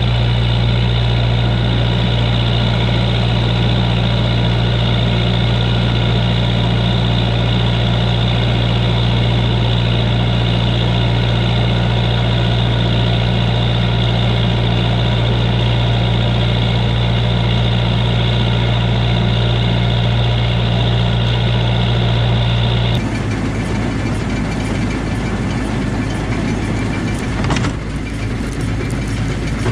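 Tractor engine running steadily while pulling a hay baler, heard from inside the cab. About three-quarters of the way through, the steady drone changes abruptly to a rougher, clattering noise.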